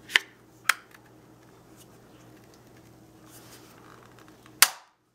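Large oval craft punch being handled with paper cardstock slid into it. There are two sharp clicks in the first second, faint paper rustling, and a louder click near the end, after which the sound cuts out.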